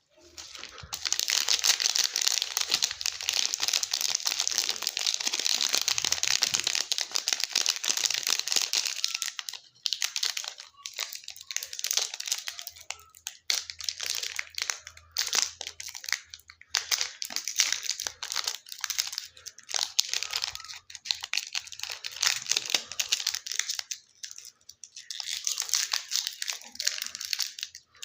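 Candy and chocolate wrappers being crinkled and torn open by hand. The crinkling is dense and continuous for about the first nine seconds, then comes in shorter bursts with brief pauses.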